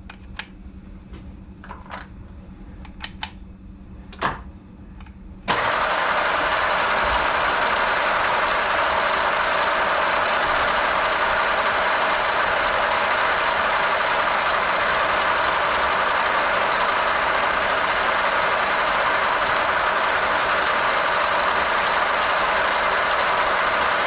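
A few light clicks, then about five seconds in a model 675 milling machine is switched on and its spindle and gearbox run steadily at a set speed of 800 rpm, an even mechanical hum with a thin high whine.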